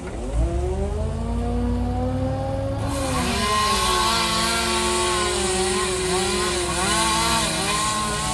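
Chainsaw engine running at high revs, its pitch dipping and rising again several times as the throttle is worked or the chain takes load. About three seconds in, a louder hiss joins it.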